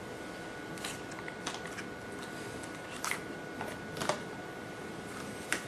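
Scattered light clicks and taps from a laptop LCD panel being handled and lined up against its metal mounting frames, over a steady background hiss.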